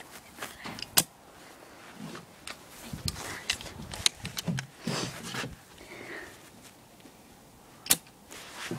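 Airsoft L96A1 bolt-action spring sniper rifle firing: two loud, sharp snaps, one about a second in and one near the end, with a smaller click around the middle and softer clicks between.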